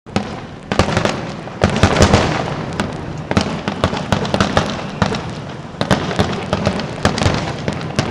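Fireworks display: many loud bangs and booms going off in quick, irregular succession, overlapping one another.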